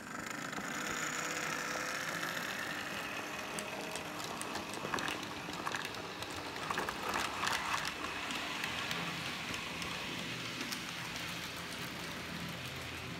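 Old electric motor of a model ÖBB 1044 electric locomotive whirring as it pulls away, with a faint rising whine early on; the owner calls its departure sound very strange because of the old motor. The wagons' wheels click on the model track as the freight train rolls past, most in the middle.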